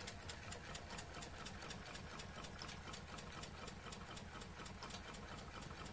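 Homemade Stirling engine generator running at full speed under load, its flywheel mechanism making a faint, fast, even ticking.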